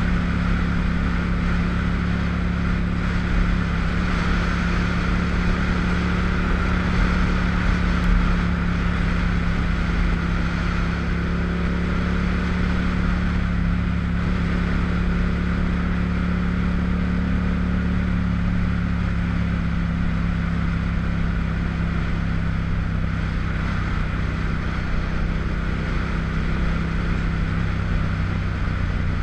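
Motorcycle engine running at a steady cruising pace with wind noise over the microphone; the engine note holds steady and drops slightly near the end.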